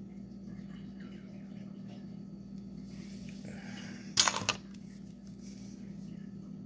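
A steady low hum with a short, sharp clatter of clicks about four seconds in.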